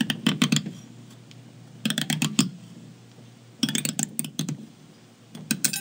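Hand-cranked steel-roller metal corrugator (FDJ DA401) crimping a thin copper strip as its key is turned, giving four short bursts of rapid clicking from the rollers and crank.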